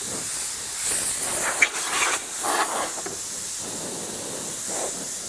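Compressed air hissing continuously out of a blow gun as the tank of a Metabo HPT 36V MultiVolt 2-gallon compressor is drained with the compressor switched off. The hiss surges a few times in the first half.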